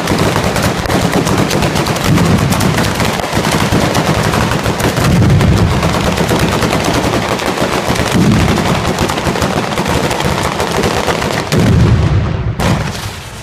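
A 'batteria alla Bolognese' fireworks barrage: ground-level firecrackers and bombs going off in a rapid, unbroken string of bangs, like machine-gun fire. It stops abruptly about a second before the end.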